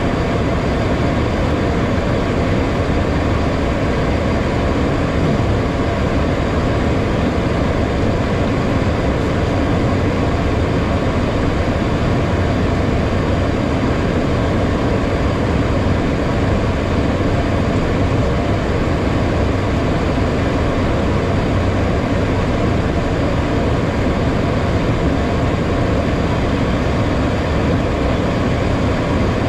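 Steady cockpit noise inside a HondaJet on approach: an even rush of air with the hum of its twin GE Honda HF120 turbofans, unchanging throughout.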